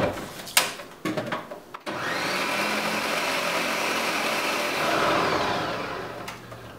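Ninja countertop blender blending thin crepe batter. A few clicks and knocks come first, then the motor starts about two seconds in, runs steadily, and winds down near the end.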